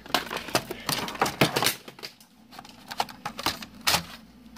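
Irregular clicks and clatters of plastic objects being handled and shifted while rummaging through clutter.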